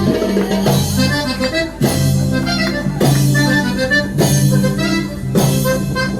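Instrumental music with an accordion- or harmonica-like reed melody over sustained bass notes and a steady beat about once a second.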